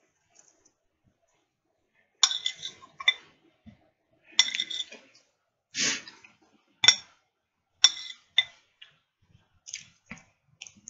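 Sharp ringing clinks against a dinner plate while eating ribs, coming in several quick clusters from about two seconds in, with a short noisier sound near the middle.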